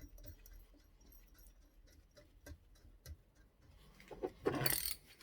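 A bolt being screwed by hand into a fishing magnet: faint scattered metal clicks and ticks, then a louder, noisier scrape about four and a half seconds in.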